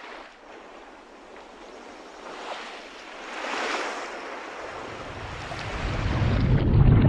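Underwater ocean sound effect for a logo intro: a rushing, wave-like wash of noise that swells about halfway through, then builds into a loud, deep rumble over the last couple of seconds.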